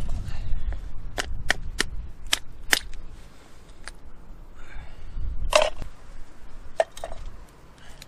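A blunt stone knocking limpets off rock: sharp, clicky knocks, a quick run of about seven in the first few seconds and a few more later, over a low rumble.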